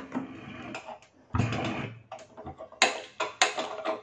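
Kitchen cookware being handled: a short scraping rush about a second and a half in, then a few sharp clicks and knocks of steel bowls and pans being moved and set down.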